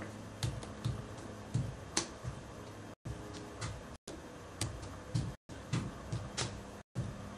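Light, irregular taps and clicks, about a dozen, of tools working a clay sword model on an anvil, over a steady low hum.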